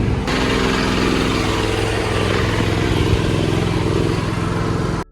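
An engine running steadily and loudly, then cut off abruptly near the end.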